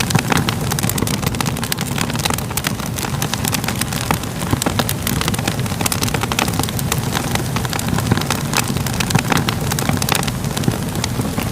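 Crackling fire: a steady low sound of burning with frequent irregular crackles and pops.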